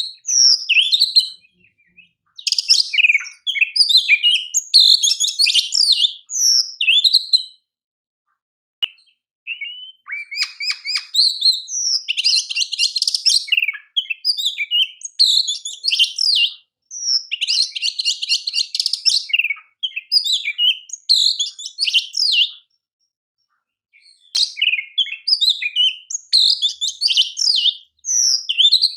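Oriental magpie-robin (kacer) singing a loud, varied song of rapid whistled and chattering phrases in bursts, with two fast buzzing trills in the middle, broken by short pauses.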